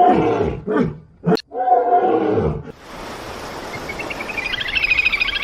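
An animal calling several times in short, pitched cries, then a steady noisy background with a fast pulsing chirr that starts about four seconds in.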